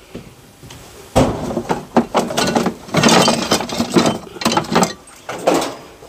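Hand tools clattering, knocking and scraping as they are rummaged through and picked up from a shelf: a run of sharp clicks and knocks starting about a second in.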